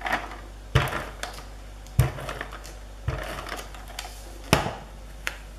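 Handheld adhesive tape gun being run over the back of a paper die-cut: four sharp clicks and knocks, with faint crackling of the tape between them.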